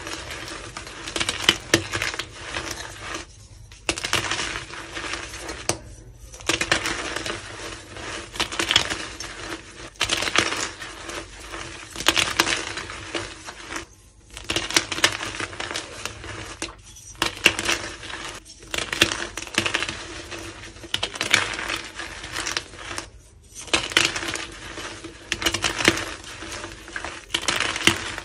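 Hands squeezing and crushing reformed gym chalk blocks and loose chalk powder: dense, crisp crunching and crumbling, broken by several brief silent gaps.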